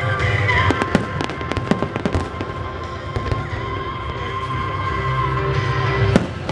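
Fireworks going off: rapid sharp cracks and bangs in clusters, with a louder bang near the end.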